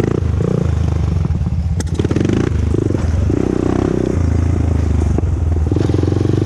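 Honda TRX400EX ATV's single-cylinder four-stroke engine running during a ride, the throttle opening and closing so the engine note rises and falls. A sharp click about two seconds in.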